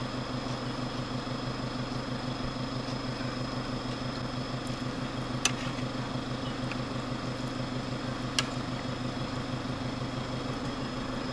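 A steady mechanical hum with a faint high whine, broken by two short clicks about three seconds apart.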